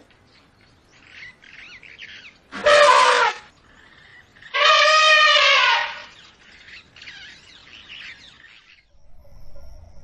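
Asian elephant trumpeting twice: a short blast about two and a half seconds in, then a longer, slightly arching call of about a second and a half. Fainter, high, wavering chirps come before and after the calls.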